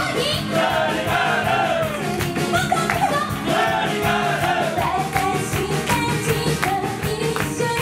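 Live band music: several women's voices singing together over a drum kit, bass and electric guitar, with a steady beat.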